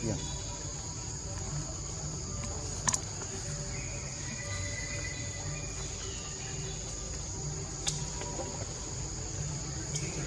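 A steady, high-pitched insect chorus drones over a low rumble. Two sharp clicks stand out, about three seconds in and about eight seconds in.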